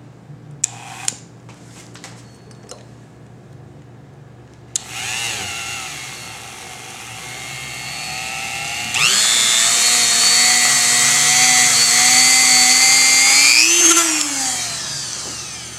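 Dremel rotary tool with a small rubber wheel spinning up a large brass gyroscope flywheel by friction, starting with a sharp onset about five seconds in. Its high whine grows much louder about nine seconds in and climbs slowly in pitch as the flywheel speeds toward about 3,000 RPM, then falls away near the end as the tool comes off. Two light handling clicks come about a second in.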